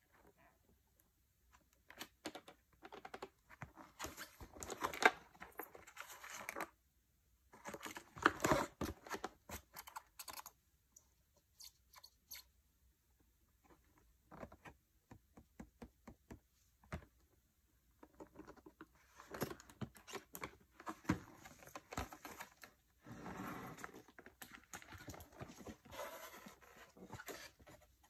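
Cardboard and plastic packaging handled by gloved hands: crinkling, scraping and tearing in bursts of a few seconds with quieter gaps between.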